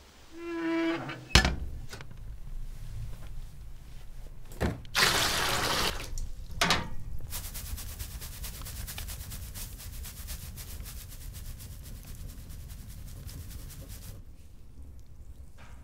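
Water in a wooden bathhouse: a short creak and a sharp knock near the start, a loud splash about five seconds in, then a steady rush of water that stops about fourteen seconds in.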